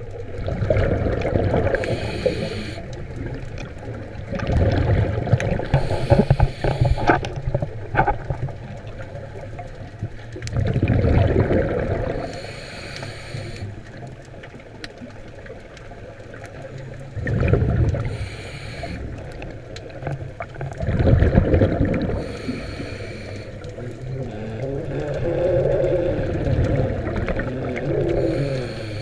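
Muffled underwater sound as heard through a GoPro's waterproof housing: a low water rush that swells and fades every few seconds, with short hissing bursts between the swells.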